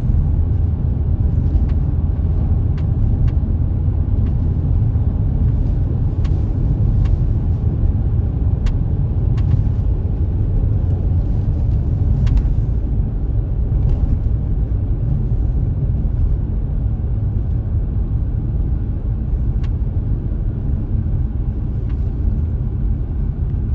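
A car driving along a road, heard inside the cabin: a steady low rumble of tyres and engine, with a few faint clicks scattered through it.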